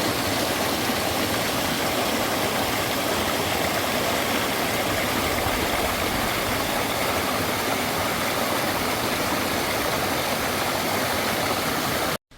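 Steady rushing of a stream in a mossy valley, an even hiss of flowing water with no change. It cuts off abruptly near the end.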